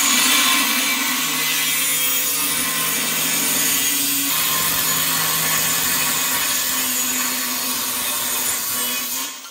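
Angle grinder with a thin disc cutting into a steel motorcycle frame, trimming off a bracket: a loud, steady hiss of metal being cut over the motor's whine. It starts abruptly at the beginning and is let off just before the end.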